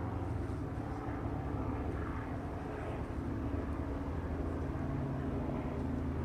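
Steady low engine drone made of several held pitches, shifting slightly near the end, typical of a propeller aircraft passing overhead.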